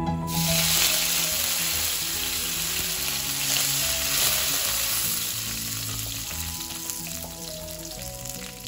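Curry leaves dropped into hot coconut oil with mustard seeds, sizzling and being stirred with a wooden spatula. The sizzle starts suddenly and slowly dies down.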